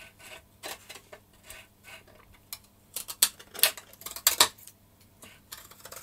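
Scissors snipping off the leftover overhang at the rear edge of a carbon-fibre model glider wing: a series of sharp, irregular snips, loudest about three to four and a half seconds in.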